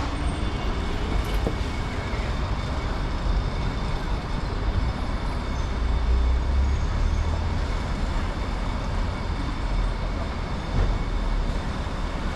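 Steady urban traffic noise with a heavy low rumble from passing vehicles, and voices of people nearby mixed in.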